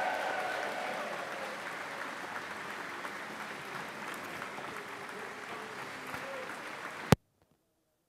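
Applause from a crowd, easing off after the first couple of seconds, with some voices mixed in. About seven seconds in there is one sharp click, and the sound cuts off abruptly.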